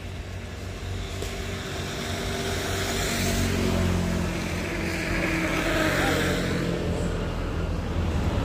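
A motor vehicle's engine running steadily, growing louder over the first four seconds or so and then holding.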